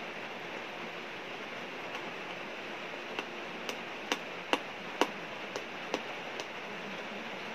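A run of about eight sharp clicks and taps over some three seconds, starting about three seconds in, as fingers and fingernails pick and press at the edge of a small cardboard smartwatch box to prise it open. A steady hiss lies underneath throughout.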